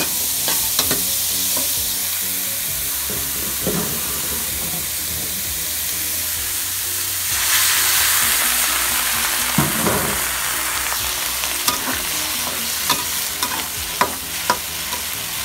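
Sliced zucchini sizzling in a hot wok while a metal spatula stirs it, with scraping and sharp clicks of the spatula against the pan. About halfway through, the sizzle turns louder and hissier as liquid hits the hot pan and steams.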